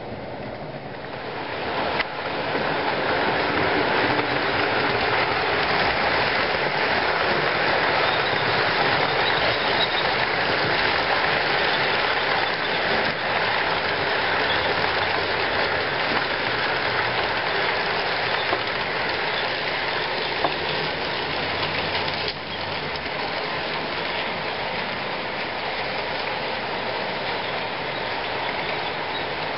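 Electric model trains running on the layout's track: a steady rattle of wheels on rail with motor whir. It gets louder about two seconds in and drops a little after about twenty-two seconds.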